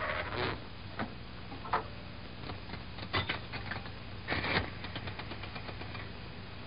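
Scattered clicks and knocks of an old wall payphone with a rotary dial being handled and dialled, with louder clusters about three and four and a half seconds in, over the steady low hum of an old film soundtrack.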